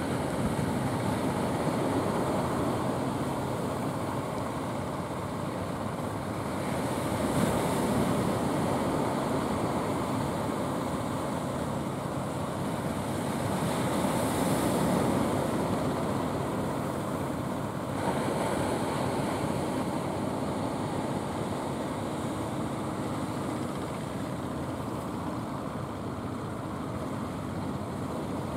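Surf washing onto a sandy beach, a steady rushing that swells as waves break, about a quarter of the way in and again near the middle. Under it runs the low drone of an outrigger fishing boat's engine as the boat heads in toward shore.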